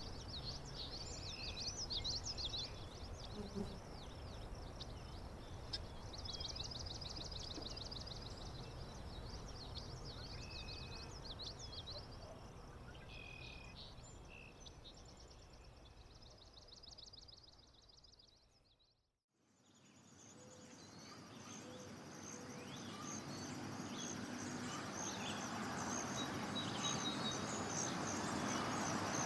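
Countryside ambience of wild birds singing, with repeated rapid trilling phrases over a low background rumble, fading out to silence about two-thirds of the way through. Another nature recording then fades in, with a dense, steady high chirping and background noise that grows louder toward the end.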